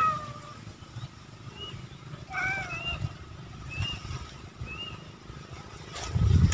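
Animal calls outdoors: a handful of short, arched chirps, one near the start, one more drawn-out call about two and a half seconds in, and smaller high chirps at roughly one-second intervals.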